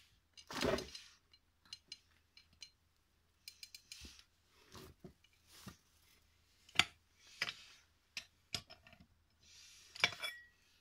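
Scattered metallic clinks, clicks and knocks of metal parts and tools being handled during work on an old vacuum pump, with a louder scraping noise about a second in.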